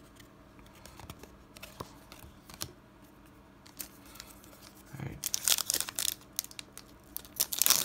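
Foil wrapper of a Pokémon TCG booster pack crinkling and tearing as it is opened by hand, starting about five seconds in. Before that, soft clicks and rustles of cards being handled.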